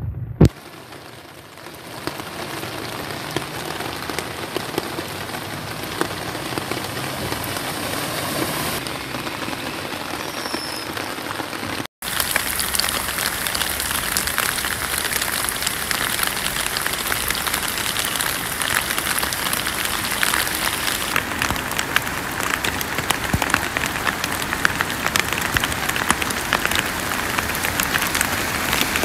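Torrential rain falling on a flooded road: a steady hiss thick with the ticks of individual drops. About twelve seconds in it cuts to louder, closer-sounding rain.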